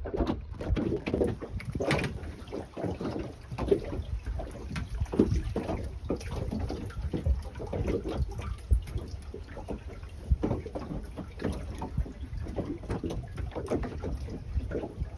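Water slapping and sloshing against the hull of a small open boat drifting without its engine running, in irregular splashes and knocks over a low rumble.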